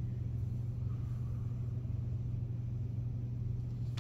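A steady low hum, with a single click at the very end.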